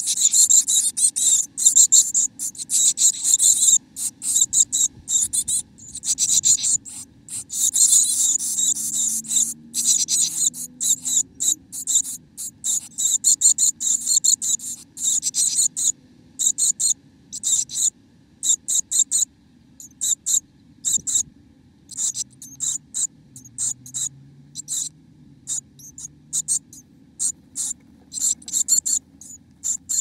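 Chickadees inside a nest box making quick, high-pitched scratchy sounds that come in rapid, irregular runs with short pauses between them.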